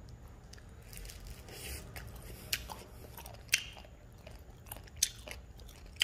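A person chewing a mouthful of seasoned, blanched jinjeori seaweed, with a few sharp crunches about two and a half, three and a half and five seconds in.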